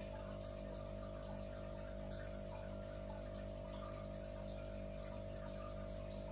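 Aquarium filter running: a faint, steady hum with water trickling.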